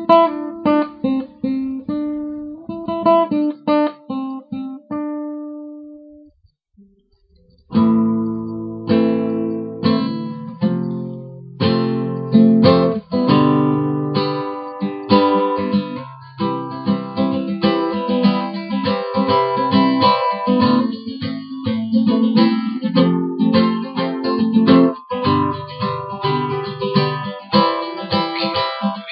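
Acoustic guitar music: single picked notes for about five seconds, a short pause, then fuller strummed chords with low notes in a steady rhythm.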